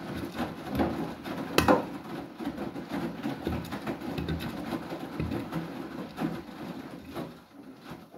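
Beko WTK104121W washing machine drum tumbling wet clothes, with water sloshing and splashing and small irregular knocks, one louder knock about a second and a half in. The sound falls away near the end as the drum slows.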